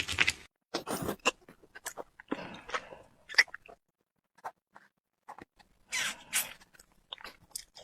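Close-miked eating of cake: irregular bites and chewing, with sharp crisp clicks and short wet smacks separated by brief pauses.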